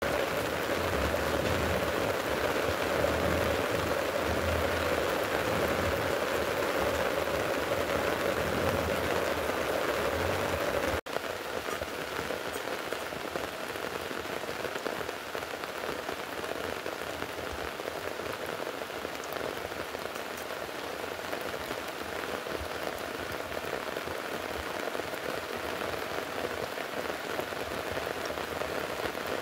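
Steady rain falling, an even hiss. About eleven seconds in it changes abruptly to a softer rain sound.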